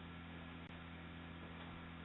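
Steady low electrical hum over faint hiss, with no distinct event: the background noise of a doorbell camera's microphone.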